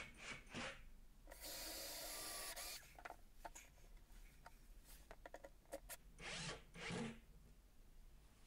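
Cordless drill running steadily for about a second and a half, boring a pilot hole up through a pine batten into the chipboard shelf. Small clicks and handling knocks follow, then two short bursts of the drill near the end, all faint.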